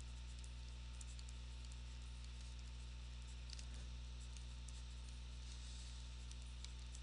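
Faint, steady low electrical hum with scattered light ticks of a stylus writing on a tablet screen.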